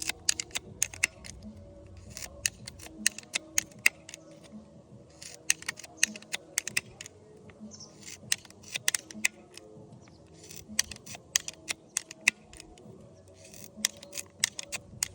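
Ratchet anvil pruner cutting branches in stages: groups of sharp clicks from the ratchet and blade, each group a second or two long, coming in repeated bouts about every two and a half seconds, over soft background music.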